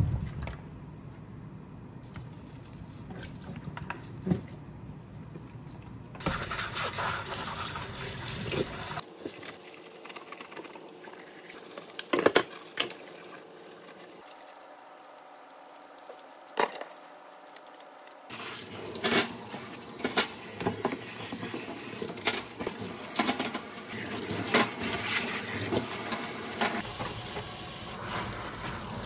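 A run of short, cut-together clips of everyday household sounds, with water filling or running and scattered sharp clicks and knocks.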